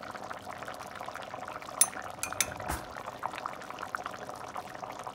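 Pot of rice, spinach and vegetables in coconut milk bubbling on the stove, with steady small pops and crackles. A metal spoon clinks against the stainless steel pot a few times about two seconds in.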